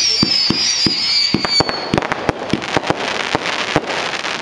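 Fireworks going off close by: several whistles, slowly falling in pitch, cut off about two seconds in. Rapid pops and bangs run underneath, and they give way to a dense crackling hiss.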